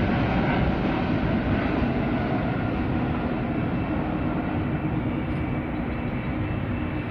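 Jet airliner engine noise, a steady rumble with a faint whine that slowly fades as the aircraft moves away.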